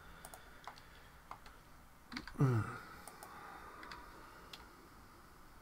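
Scattered clicks of computer keyboard keys and a mouse, one or two at a time, with a brief falling hum from a man's voice a little before halfway through.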